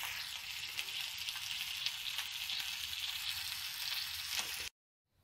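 Tandoori-marinated chicken legs sizzling in oil on a flat griddle (tawa) over a low flame, browning after the marinade's liquid has cooked off. A steady sizzle that cuts off suddenly near the end.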